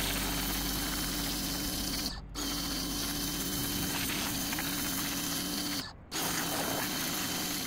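Pressure washer spraying a high-pressure water jet onto weathered cedar shingles, a steady hissing spray over the machine's running drone. The sound cuts out briefly twice, about two seconds in and about six seconds in.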